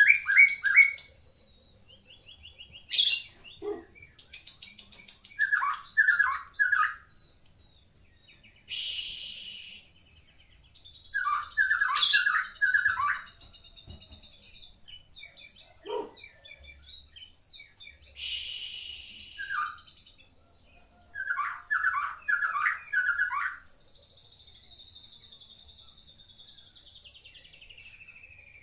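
Caged white-rumped shama singing a varied song packed with mimicked calls. It comes in separate phrases: quick runs of repeated whistled notes, two harsher rasping bursts and scattered clicks, and near the end a long whistle falling in pitch.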